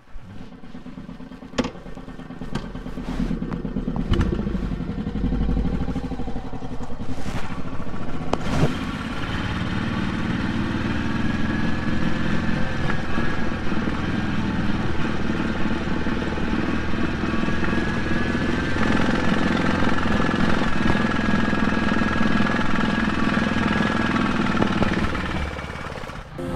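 Royal Enfield Classic 350's single-cylinder engine pulling away from a stop, growing louder over the first several seconds with a few sharp clicks, then running steadily as the motorcycle rides along.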